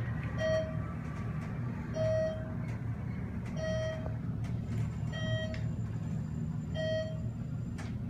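Dover/ThyssenKrupp traction scenic elevator car riding with a steady low hum, while a short electronic beep sounds five times at even spacing, about a second and a half apart.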